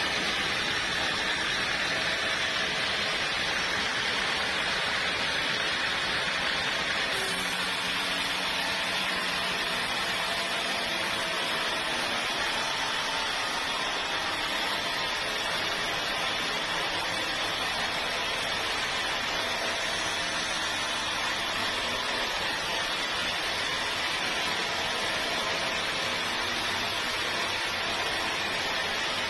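Sawmill machinery running: a steady rushing noise, with a lower hum joining about seven seconds in.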